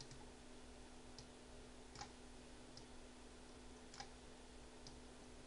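Near silence broken by about six faint computer mouse clicks, roughly one a second, over a low steady hum.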